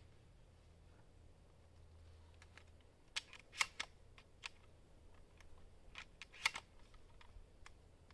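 Girsan MC312 inertia-driven 12-gauge semi-automatic shotgun being loaded: a scattering of faint, sharp metallic clicks and snaps as shells are pushed into the tube magazine and the action is handled, starting about three seconds in.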